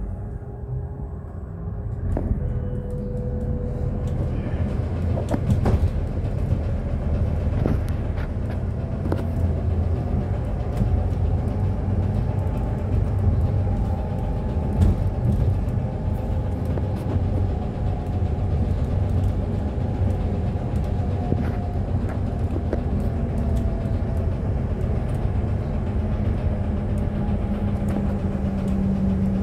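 Alexander Dennis Enviro 400H hybrid double-decker bus on the move, heard from inside on the upper deck. A steady low rumble of road and drivetrain runs throughout, with scattered rattles and knocks. A faint whine from the diesel-electric drive rises and then falls in pitch.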